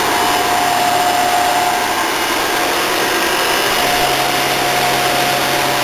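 Small window air conditioner running, its fan blowing steadily with a faint whistling tone; about four seconds in a low steady hum joins as the compressor starts.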